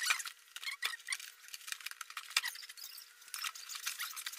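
Cardboard and plastic packaging being handled: a rapid, irregular crackle of small crinkles and clicks over a faint steady hum.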